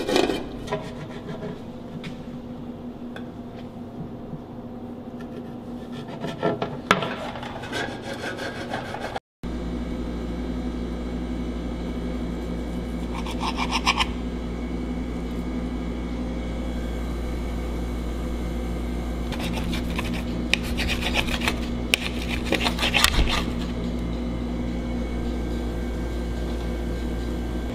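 A knife sawing and scraping through a cooked steak in a metal pan, in short rasping strokes, over a steady low hum.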